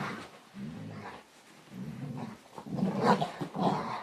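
Dog growling during play-wrestling, in a string of short low growls, loudest about three seconds in.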